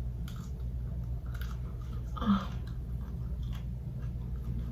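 A person chewing food close to the microphone, in several separate chews, one a little louder about two seconds in, over a steady low hum.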